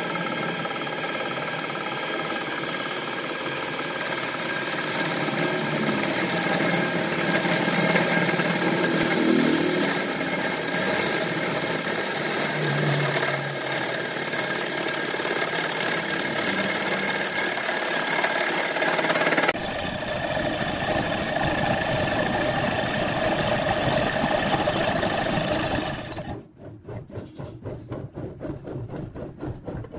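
Lathe-driven boring bar spinning inside a clamped wooden vase, its cutter hollowing out the interior with a steady machine whine and cutting noise as chips are thrown out. The sound shifts about two-thirds through, then drops sharply near the end to a fainter, quickly pulsing rattle.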